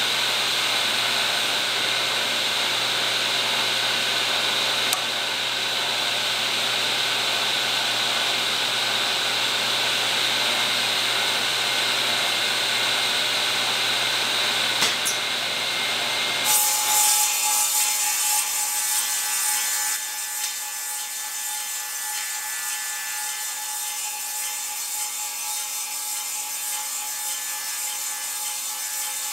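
Table saw fitted with a Tenonizer TC 300 tenon cutter, cutting a square-shoulder tenon on a rotating log: a steady saw-through-wood noise. About halfway through it changes abruptly to a quieter, steady running sound with a thin held tone.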